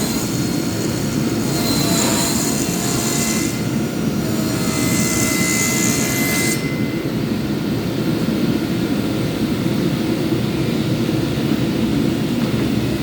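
Power sander running steadily. A higher hiss with a faint whine rises in passes of about two seconds as the abrasive works the surface, and stops about six and a half seconds in while the machine noise runs on.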